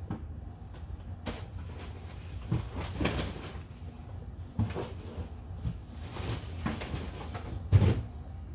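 10W-40 motor oil glugging out of a tipped-up plastic quart bottle into a funnel, in irregular gulps roughly a second apart with the loudest one near the end, over a steady low hum.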